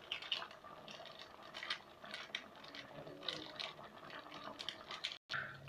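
Faint, irregular crinkling and light taps of a small foil spice sachet being shaken and tapped out over a pot of curry.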